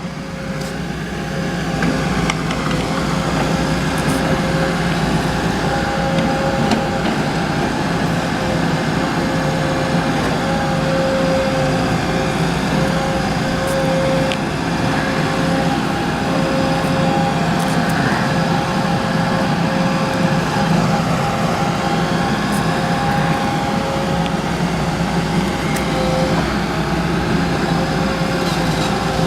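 Case 580 Super N backhoe's diesel engine running hard as it digs, with a steady whine over the engine note. It builds up over the first two seconds, then holds level.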